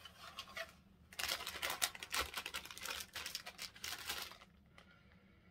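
Crinkling and rustling of a plastic candy-kit wrapper as it is handled and opened, a dense run of fine crackles from about a second in that dies away a second before the end.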